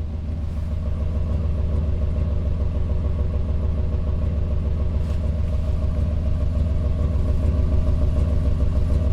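Cadillac V8 engine idling with a steady, uneven low rumble: it is misfiring, with fault codes logged for cylinders 1 and 7 and a random misfire.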